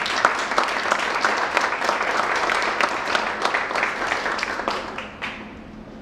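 Audience applauding, a dense patter of many hands clapping that dies away near the end.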